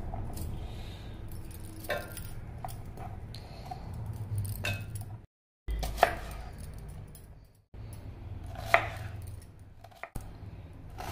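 Kitchen knife cutting an onion into wedges on a wooden chopping board: irregular knocks of the blade on the board, over a steady low hum.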